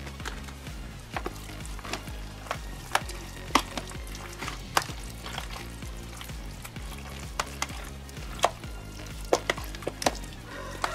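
Wet stirring of meat in a thick mustard marinade in a plastic tub, with irregular sharp clicks of the utensil knocking and scraping against the plastic. Background music plays underneath.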